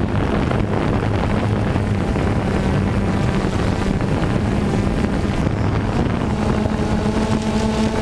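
Steady motor hum with wind noise on the microphone. About six seconds in, a second, higher-pitched motor tone joins it.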